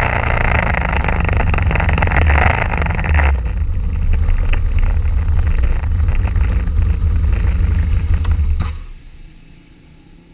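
Old Honda CBR motorcycle engine running with wind and road noise as the bike rolls in. The rushing noise falls away about three seconds in as it stops, leaving the engine idling, and the engine is switched off shortly before the end.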